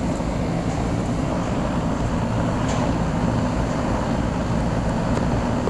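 Lennox Merit Series 1.5-ton heat pump outdoor unit running steadily in cooling mode: a constant low hum with a rush of air from the unit.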